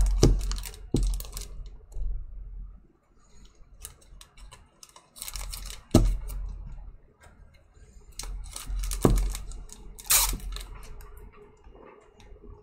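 Hands handling trading-card packs and clear plastic wrapping: crinkling plastic and several sharp taps. The loudest taps come at the start, about six seconds in and about nine seconds in, and a brief louder rustle follows just after ten seconds.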